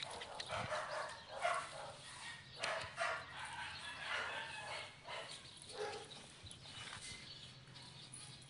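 A puppy barking in short bursts, several times, while playing.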